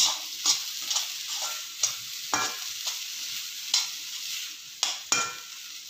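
Metal slotted spoon scraping and tossing chopped vegetables around a hot oiled kadai, a stroke about every half second, a few with a brief metallic ring, over a steady sizzle of the vegetables frying.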